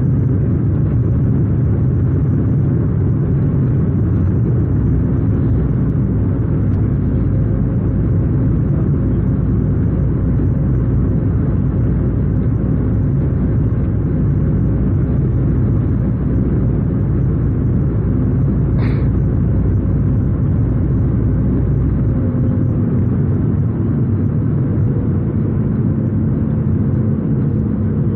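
Cabin noise inside a Sukhoi Superjet 100 on final approach: a steady, loud rumble of airflow and the twin turbofans, with a faint engine hum whose pitch shifts slightly late on.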